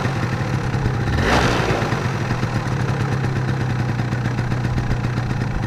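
Yamaha Mint scooter's two-stroke engine idling steadily on choke, with a brief rush of noise just over a second in. Its idle is crisp and even: with the choke on, the mixture is right, as a correctly tuned two-stroke should run; without choke this carburettor runs lean.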